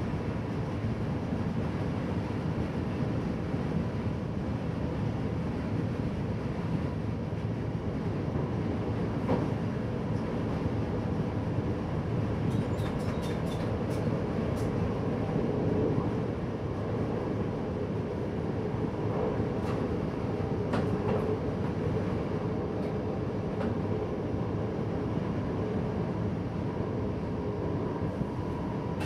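Passenger train running steadily at speed, heard from inside the driver's cab: an even rumble of wheels on rail with a faint steady whine, and a few faint ticks about halfway through.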